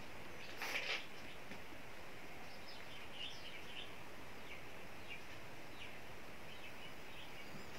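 Faint birds chirping now and then over a steady background hiss, with one brief louder sound about a second in.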